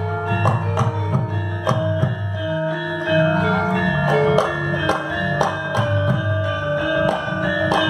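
Gamelan ensemble playing: bronze metallophones and gongs struck in a steady beat of about two strokes a second, each note ringing on, over low sustained gong tones.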